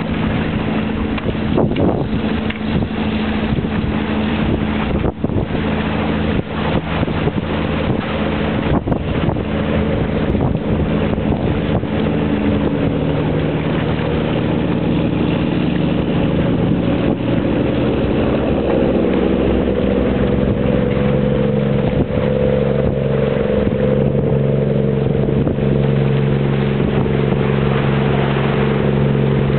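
A boat engine running with a steady drone of several held tones, the pitch shifting about halfway through. Wind buffets the microphone in the first part.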